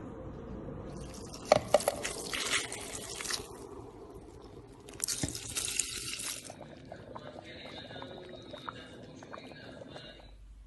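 Water running and splashing as grape leaves are rinsed at a sink, in two spells, with a couple of sharp knocks near the start of the first, then a fainter trickle.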